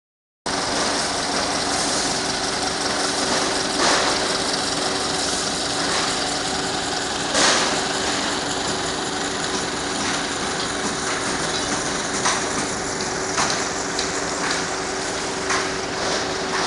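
Engine of construction machinery running steadily with a low hum, with scattered sharp knocks and clanks over it, about half a dozen of them, the loudest about four and seven seconds in.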